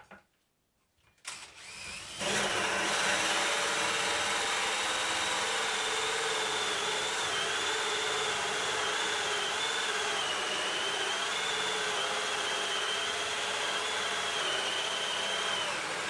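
Cordless drill running steadily under load as it bores a hole of about 38 mm through a thick timber offcut. It starts about two seconds in, and its whine wavers slightly in pitch as the bit cuts.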